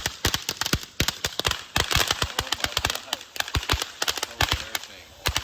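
A Pyro Mixer consumer firework firing a rapid, irregular string of loud cracks and bangs, many a second, without a break.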